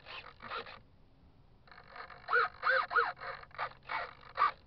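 A bird cawing: three quick arched calls about two and a half seconds in, with more short calls after.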